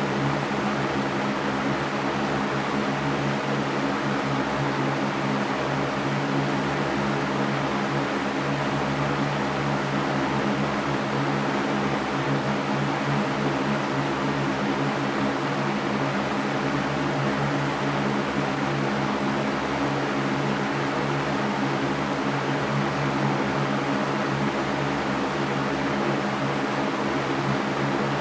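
Electric fan running steadily: an even airy whoosh over a constant low motor hum.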